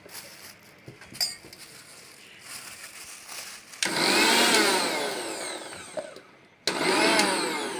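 Eveready MG 500i mixer grinder motor run in two short bursts, each winding up to a high whine and then falling in pitch as it runs down. The first comes about four seconds in and the second a moment after the first stops.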